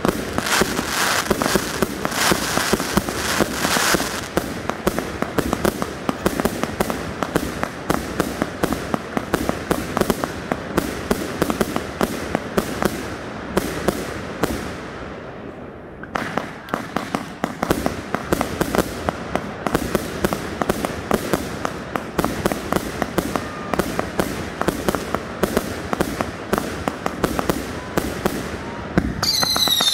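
Consumer aerial fireworks firing in rapid succession: a dense stream of launch thumps and bursting bangs, easing off briefly about halfway through, then building again. Whistling fireworks start shrieking right at the end.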